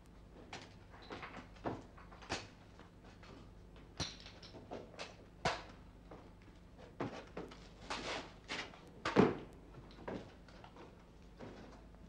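Irregular knocks, thumps and scuffs of someone clambering up a wall and grabbing at a window frame, the loudest thump about nine seconds in.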